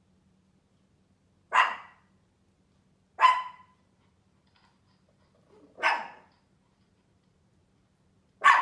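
Small Pomeranian barking: four single sharp barks a second or two apart, the last near the end, set off by hearing another dog bark.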